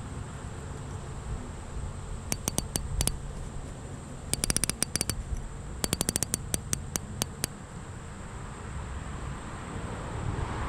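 Fly reel's click pawl ratcheting in three short runs of rapid clicks as line is pulled off the reel, over a steady low rumble of background noise.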